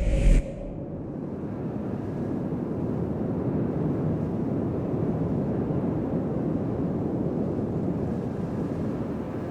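A deep booming hit right at the start, then wind blowing steadily, swelling through the middle and slowly fading near the end.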